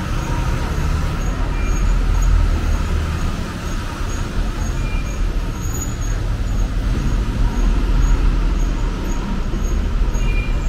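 Busy city street traffic: a steady low rumble of car and bus engines running and passing, with a faint high pip repeating about twice a second.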